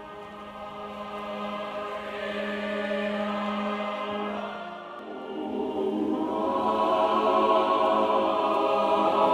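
Choir singing a liturgical chant in long held chords over a steady low note, swelling into a louder, fuller chord about five seconds in.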